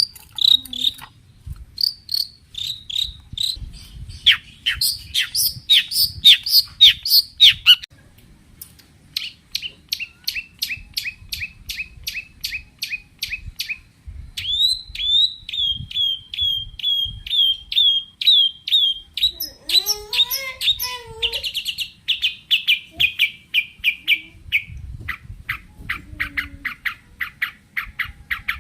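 Long-tailed shrike (cendet) singing loudly in runs of sharp, rapidly repeated notes and chattering trills, several notes a second, with brief pauses between runs. About twenty seconds in, a lower, wavering call that slides up and down in pitch breaks in before the fast notes resume.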